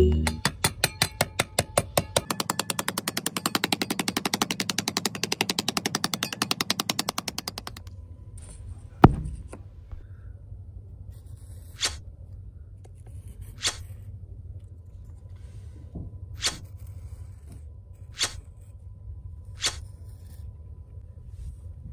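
Small hand trowel scraping over sand in a fast run of rough, clicking strokes for about eight seconds. Then one sharp knock as a flat sheet is laid down, followed by five light taps a second or two apart as popsicle-stick fence pieces are set in place.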